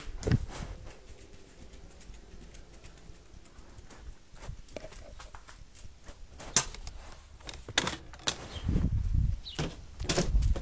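A dog mouthing and chewing on the camera that is recording: scattered clicks, scrapes and knocks of teeth and jaws against it, with heavier thuds near the end.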